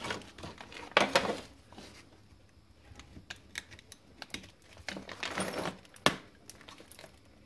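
Foil-wrapped lithium pouch cells crinkling and rustling as they are pulled apart by hand, with scattered small clicks and taps. There is a louder rustle about a second in, another around five seconds in, and a sharp click just after six seconds.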